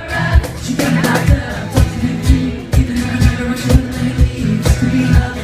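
Live pop band performance: drums, bass and guitar playing under singing, with a kick drum beating about twice a second.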